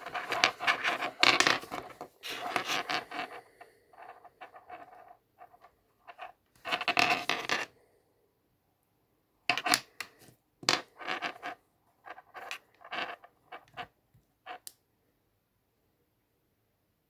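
Handling noise: scraping and rubbing in bursts, then a run of short sharp clicks and taps.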